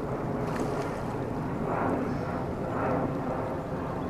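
Steady low outdoor rumble, swelling twice about two and three seconds in.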